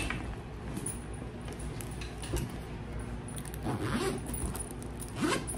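A backpack being handled: its metal rings and zipper pulls clink and jingle irregularly, with soft rustling of the bag.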